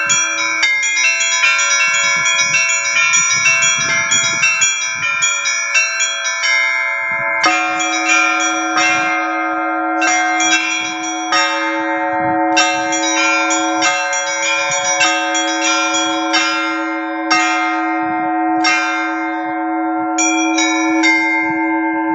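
Church bells rung in the Russian style: rapid strikes on small treble bells over the ringing notes of middle bells. About seven seconds in, a heavier, deeper bell is struck and its note rings on beneath the small bells, which then play in short groups with brief gaps between them.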